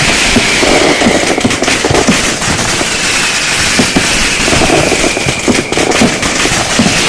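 Firecrackers and fireworks going off in a dense, continuous crackle of many pops and bangs, with a high whistle that slowly falls in pitch twice.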